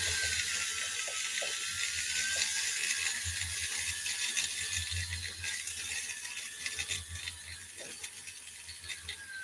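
Handheld rotary tool running with a blue Cratex rubber-abrasive wheel against a small metal part. It gives a steady high whine that dips and rises slightly as the wheel is pressed on, over a rasping hiss from the wheel on the metal.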